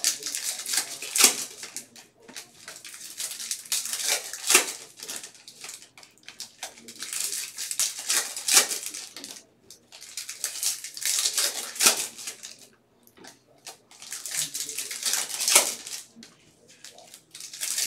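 Bowman baseball card packs being torn open by hand: foil wrappers crinkling and ripping, with the cards inside slid out and shuffled, in repeated bursts a few seconds apart with sharp cracks.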